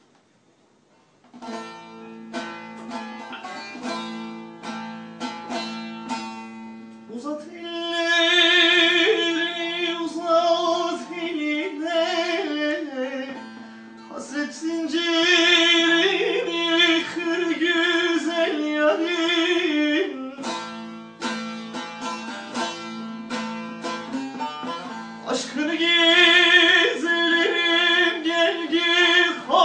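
Bağlama (long-necked Turkish saz) plucked and strummed, starting about a second and a half in, joined by a man singing from about seven seconds in, with short instrumental breaks between sung lines.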